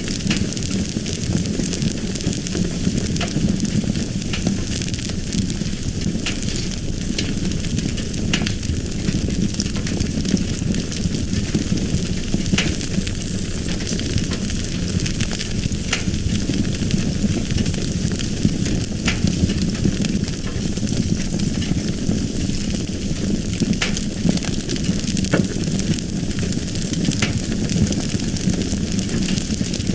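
Fire burning with a steady rushing hiss and scattered sharp crackles and pops every second or two.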